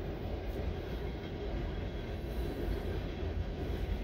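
Freight cars of a mixed freight train (tank cars and autoracks) rolling past at a grade crossing: a steady rumble and rattle of steel wheels on the rail, heaviest in the deep bass.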